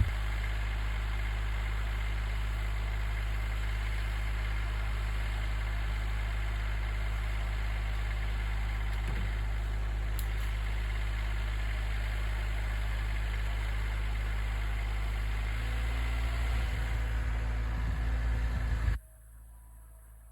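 Tractor engine idling steadily with a low hum. About three-quarters of the way through it turns louder and rougher, then the sound cuts off abruptly near the end.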